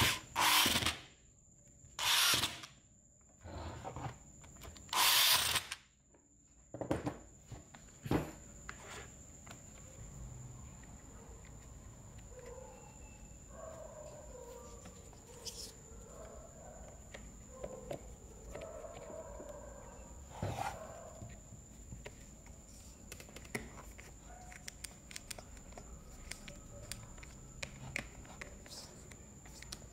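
Electric screwdriver running in several short bursts over the first six seconds, driving the screws that hold the motor end cover of a Makita MUC400 electric chainsaw. After that, light clicks and knocks of plastic parts being handled and fitted as the saw is reassembled.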